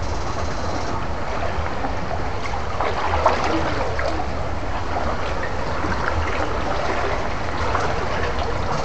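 Stream water rushing and splashing around a pair of electrofishing poles as they are swept through the shallows, with a steady low hum underneath and a brief knock about three seconds in.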